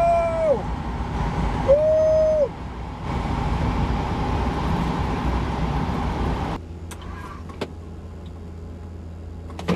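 Vehicle noise from a car: a rumbling hiss with two short steady whines, one at the start and one about two seconds in, each sliding down in pitch as it stops. About six and a half seconds in the sound changes abruptly to a quieter low hum with a few clicks.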